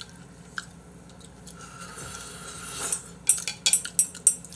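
Chopsticks and tableware clinking against bowls, a quick run of sharp clinks starting about three seconds in. A swelling rush of noise comes just before the clinks.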